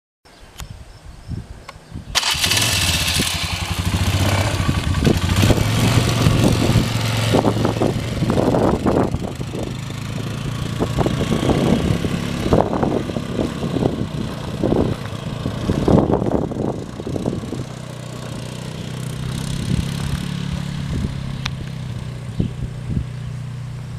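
A 2006 Polaris Sportsman 450 ATV's single-cylinder four-stroke engine starts about two seconds in, then runs with the throttle rising and falling as the quad drives off. It grows fainter after about eighteen seconds as it moves away.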